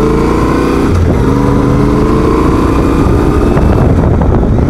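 Motorcycle engine accelerating away, its pitch climbing, dipping about a second in and climbing again, with wind rushing over the helmet camera.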